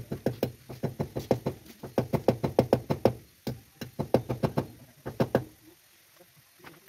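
Rapid, light knocking in three runs, about six or seven strikes a second, then a shorter run and a brief last one: a hammer tapping small nails into the wooden eave beam to fix a lighting line.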